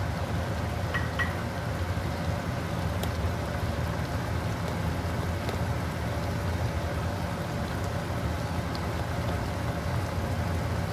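Shrimp in butter sauce simmering in a wok over a gas burner: a steady crackling bubble and sizzle, with a low steady hum underneath.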